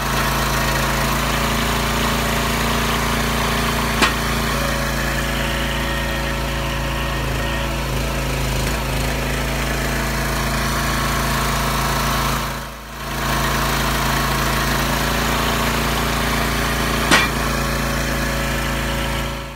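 Small gasoline engine of a log splitter running steadily at constant speed, with two sharp knocks, one about four seconds in and one near the end.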